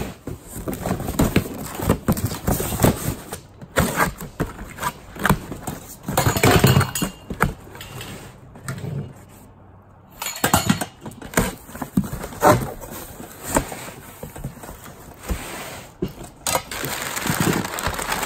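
Handling a cardboard box: irregular knocks, bumps and clatter as the box is shifted and its flaps opened, with paper rustling near the end.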